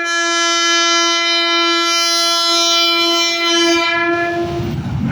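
Long, steady blast of a WAP-5 electric locomotive's horn on one held note, ending about four and a half seconds in as the loud rush and rumble of the express train passing takes over.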